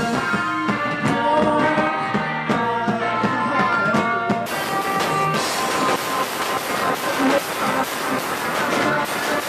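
Rock band playing live: electric guitar and drums, with a cymbal wash coming in about four and a half seconds in.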